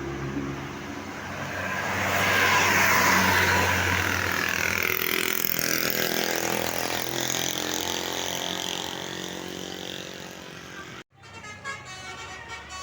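Tour bus's multi-tone 'basuri' telolet air horn playing its tune over the bus's running engine, loudest about three seconds in as the bus goes by. The sound cuts off suddenly about eleven seconds in and another stretch of horn tones follows.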